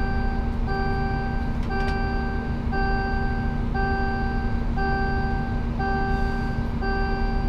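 Warning beeper in the Scania P360 truck's cab sounding a steady run of beeps, about one a second, each a little over half a second long. Under it runs the drone of the truck's engine and road noise.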